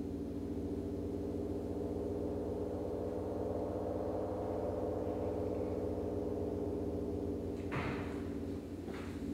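A steady low drone made of several held tones, with a short burst of noise about eight seconds in.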